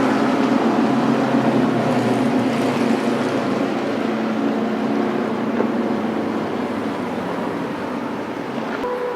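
Vintage Indy race car engine running at speed, its sound steadily fading as the car moves away. Right at the end a new, higher steady engine tone comes in.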